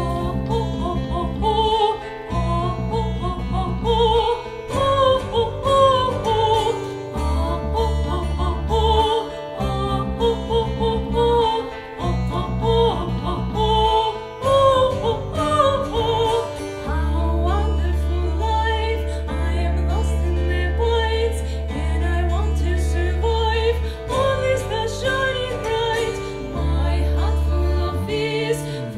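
Music: a melody with strong vibrato over a steady low bass accompaniment, running without a break.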